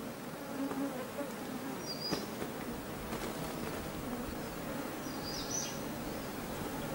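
Insects buzzing steadily around a waterhole, with two short high bird chirps, about two seconds in and again a little after the middle.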